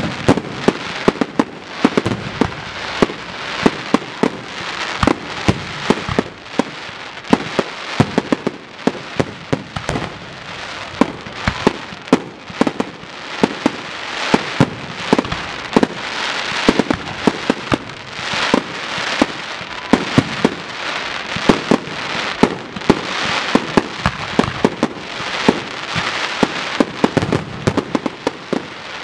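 Aerial fireworks display: a rapid, unbroken run of sharp bangs from bursting shells, several a second, over a continuous crackle.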